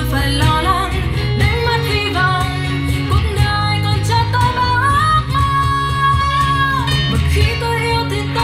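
Pop song playing: guitar and bass under a melody line, with one long note held for about a second and a half past the middle.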